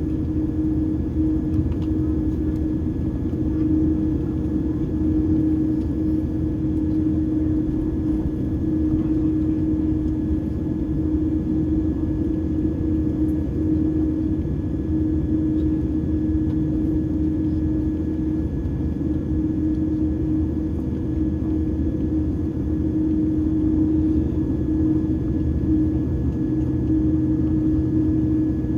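Airliner taxiing, heard from inside the passenger cabin: a steady drone of the jet engines at taxi power with a constant low hum and a faint high whine.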